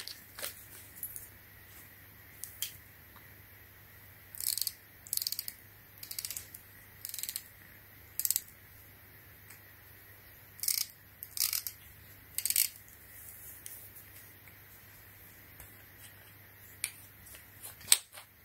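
Ratchet head of a Pittsburgh Pro click-type torque wrench turned by hand, giving about eight short bursts of fine, rapid clicking in the middle of the stretch, with a single sharp click at the start and another near the end.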